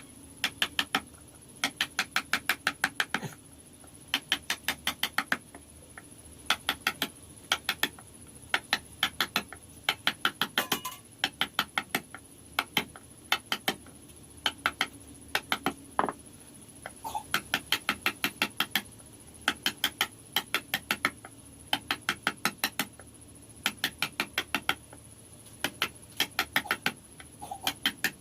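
Carving chisel struck with a hammer into wood in quick runs of light taps, about seven or eight a second, with short pauses between runs.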